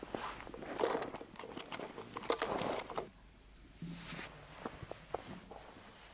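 Paper crinkling and rustling as a drip-bag coffee filter is torn open and hooked over a cup, busy for about three seconds. After that it goes quieter, with a few light clicks.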